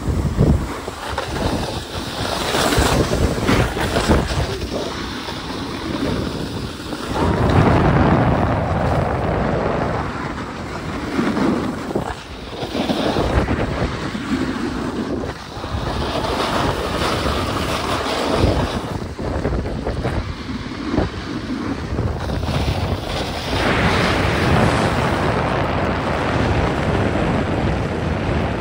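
Wind rushing over the microphone, mixed with the hiss and scrape of edges sliding over snow on a downhill run. The noise swells and fades every few seconds with the turns.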